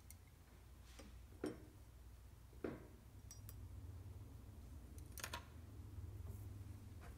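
A few scattered light taps and clicks of a paintbrush against a glass rinse jar as it is rinsed and dabbed, over a low steady hum.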